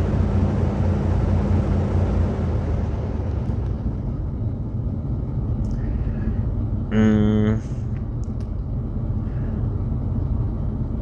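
Jeep Grand Cherokee WJ's 4.7-litre V8 revved up, then settling back toward idle within about four seconds. A brief steady tone sounds once about seven seconds in.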